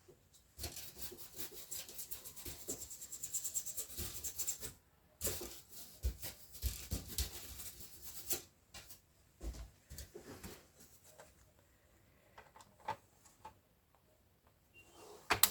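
HP 240 G7 laptop's plastic bottom cover being fitted and pressed into place: about four seconds of rubbing and scraping, then scattered clicks and taps that thin out to a few isolated ticks in the last several seconds.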